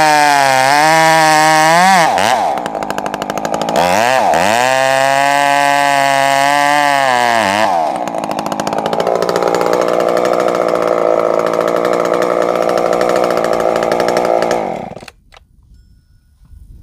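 Husqvarna chainsaw cutting a board from a block of wood at full throttle, its pitch wavering and dipping as the chain bites. It eases off about 2 s in, revs back up for a second cut, drops to idle about 8 s in, and is switched off about 15 s in.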